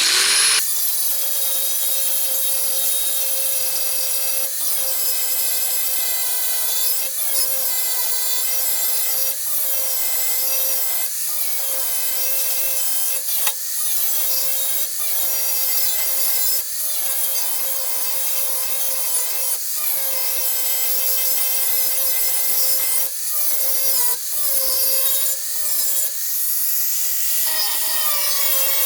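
Grinder grinding down a fresh MIG weld on a steel car fender lip. It makes a high, steady whine that starts abruptly, dips briefly about every two seconds as the disc is worked over the metal, and rises in pitch for a moment near the end.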